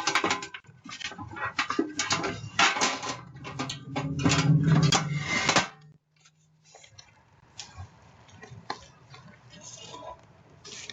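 Clattering and rustling as a mailbox is rummaged through, with metal knocks and handling noise picked up by a doorbell camera's microphone. About six seconds in it drops to faint, scattered clicks.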